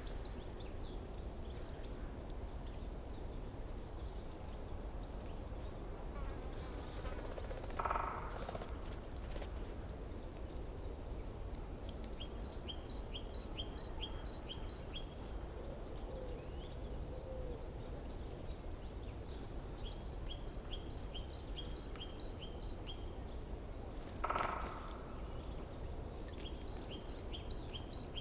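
Forest stream flowing steadily, with songbirds over it. A bird sings three phrases of quick, evenly repeated high notes, each lasting about three seconds, and twice, about 8 s and 24 s in, a lower, harsher single call stands out.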